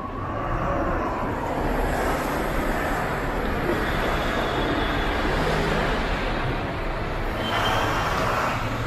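Road traffic noise from vehicles running and moving along the airport curb, steady throughout, with a brief louder hiss about seven and a half seconds in.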